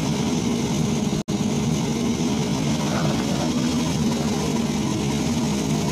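Volvo crawler excavator's diesel engine running steadily while the machine digs and dumps with its arm and bucket. About a second in, the sound drops out for a split second.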